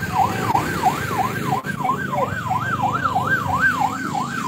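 A siren wailing quickly up and down, about two and a half sweeps a second, over the low rumble of truck engines.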